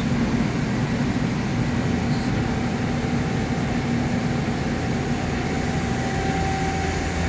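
Steady drone of machine-shop machinery with a low hum, joined about halfway through by a thin steady whine.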